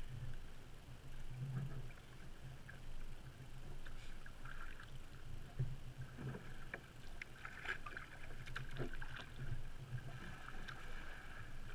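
Water lapping against a kayak's hull, with scattered small splashes.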